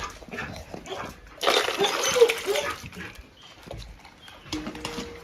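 A dog at its feeding bowl, with wet splashing from raw chicken necks soaked in warm water. A loud, noisy burst of sound comes about a second and a half in.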